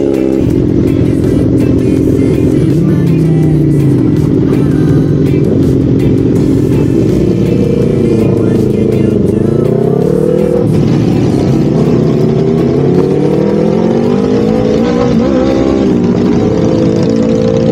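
Yamaha MT-03 motorcycle engine under way, revving up and easing off as it accelerates; the pitch climbs and drops several times, with rises about three seconds in, around the middle and again near the end.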